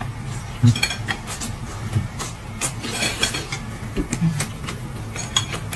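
Eating sounds at a hot pot table: chewing and mouth noises with scattered short clicks and taps, over a steady low hum.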